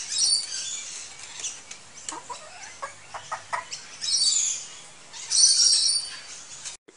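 Birds chirping and calling in short high-pitched bursts, loudest about four and five and a half seconds in, with a few lower falling calls between them.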